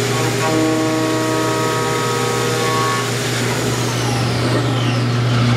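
A CNC milling machine cutting a metal part under flood coolant: a steady low machine hum with the splash of coolant and the ringing tones of the endmill in the cut for the first few seconds. A high whine glides down in pitch past the middle.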